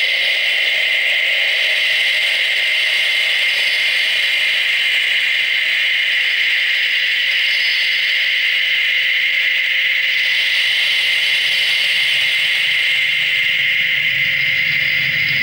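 Live electronic soundscape played from a laptop: a steady, static-like noise drone with a bright hiss. A low hum joins in near the end.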